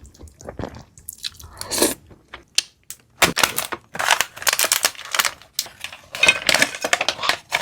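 A person biting and chewing crunchy food close to the microphone: scattered crunches at first, then rapid, irregular crunching from about three seconds in.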